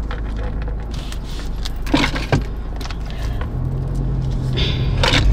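Keys jangling and clinking a few times over the low steady rumble of a car, with a low hum coming in a little past the middle.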